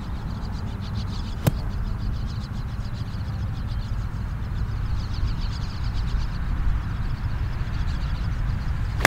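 Gap wedge striking a golf ball with a sharp click right at the end, after a smaller sharp click about a second and a half in. Wind rumbles low and steady on the microphone throughout, with birds chirping faintly in the background.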